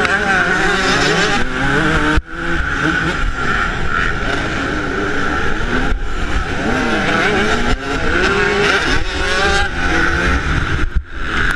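Yamaha YZ125's two-stroke single-cylinder engine being ridden hard, its pitch rising and falling continually as the rider works the throttle and gears. The sound dips sharply and briefly about two seconds in and again near the end.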